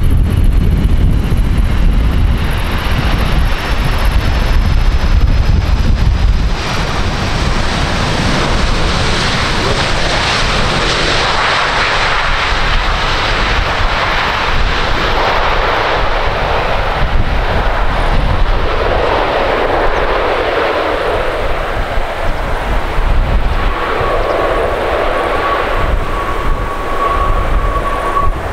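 Boeing 767 twin-jet airliner on its landing rollout, its jet engines' roar swelling a quarter of the way in as it slows down the runway. Wind buffets the microphone at first, and a steady high whine from the engines comes in near the end.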